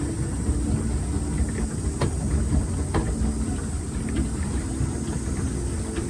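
Swan pedal boat being pedalled hard: a steady low rumble from the pedal drive and paddle wheel churning the water, with a couple of sharp clicks about two and three seconds in.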